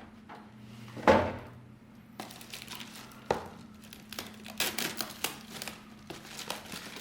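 Packaging crinkling and rustling as it is handled, with a louder knock about a second in and a quick run of crinkles near the end.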